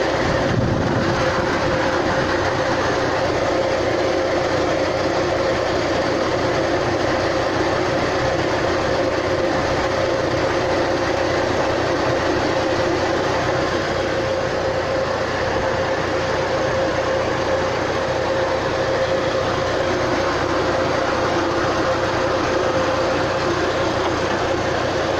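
UAZ Patriot engine idling with the air-conditioning compressor switched on, a steady running sound with a constant mid-pitched hum. Lubricant has just been sprayed on it to cure a squeak.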